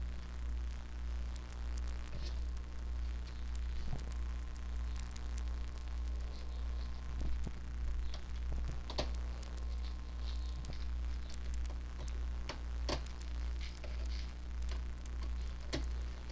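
Scattered light clicks and taps of hands handling a 4-conductor 22-gauge wire and small tools at a controller board, over a steady low hum.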